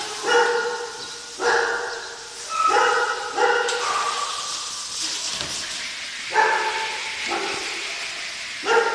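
Several kennelled dogs barking in repeated bouts, a few voices overlapping each time.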